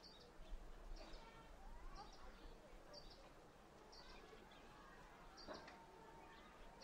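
Quiet small-town ambience: faint, indistinct voices of people in the distance, with a bird giving a short high chirp about once a second.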